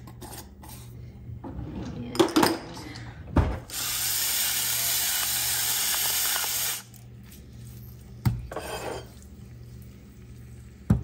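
Pepper grinder grinding pepper over the pan: one steady grinding noise lasting about three seconds, the loudest sound here. A few light clicks and knocks of seasoning containers and a utensil come before and after it.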